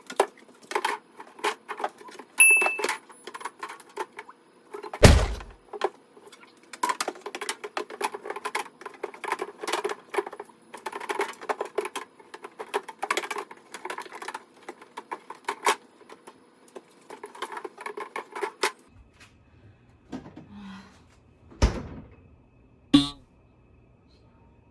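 Hands handling and wiping items during refrigerator cleaning: a dense run of small clicks, taps and knocks, with a heavy thud about five seconds in. After about nineteen seconds it thins to a few separate knocks.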